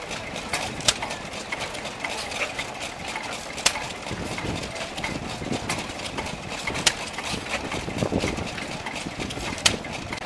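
Vintage stationary engines running slowly. A sharp crack comes about every three seconds, with lighter ticks between.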